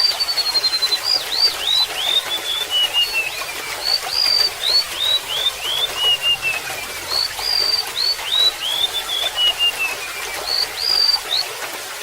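Golden-bellied gerygone singing: repeated phrases of high, thin notes that slide downward in pitch, over a steady trickle of gurgling water.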